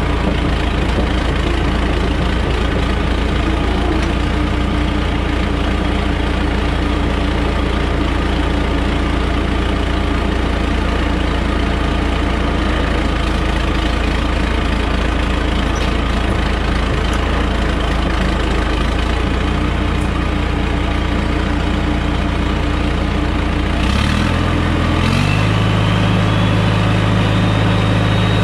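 John Deere 450C crawler dozer's four-cylinder diesel engine running steadily at low idle, below the 1700 rpm at which the transmission pressure should be checked. About 24 seconds in, its note steps up in pitch and the engine runs on at the higher speed.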